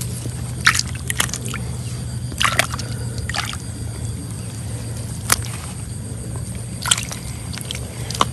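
Hands squelching and splashing in shallow muddy water, in short sharp splashes every second or so, over a steady low hum.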